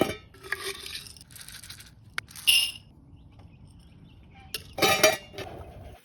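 Clinks and rattles of feeding dishes and gear being handled: a short rattle, a sharp click about two seconds in, another rattle, and a louder rattle about five seconds in.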